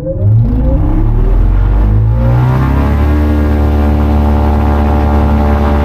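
Electric motor and propeller of a Pipistrel Taurus Electro self-launching glider spinning up to takeoff power: a whine rising in pitch over about three seconds, then holding steady as the takeoff roll gets under way.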